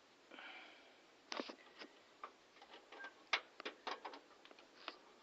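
Screwdriver driving a screw to fasten a graphics card's bracket into a computer case: a brief scrape near the start, then a run of irregular sharp metal clicks and ticks.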